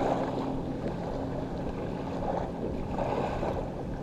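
Steady wind and surf washing on the beach, with a faint low steady hum underneath.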